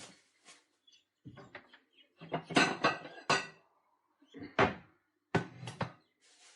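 A plastic bag of raw flathead pieces and spice-flour mix being shaken to coat them: crinkling rustles and soft thuds that come in several irregular goes, the loudest near the middle.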